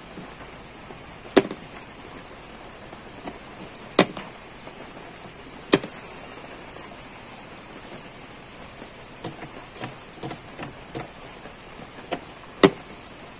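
Piano-key buttons of an old National 2-in-1 cassette player being pressed: four sharp clicks a few seconds apart, with a run of smaller clicks in between, over a steady hiss.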